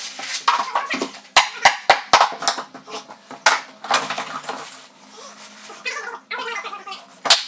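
A run of sharp knocks and clatter: four quick knocks about a second and a half in, a single one a little later, and the loudest knock near the end.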